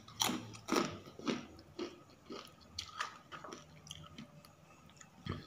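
Close-up chewing of a crunchy mouthful: three loud crisp crunches about half a second apart, then softer, irregular chewing, with one more crunch near the end.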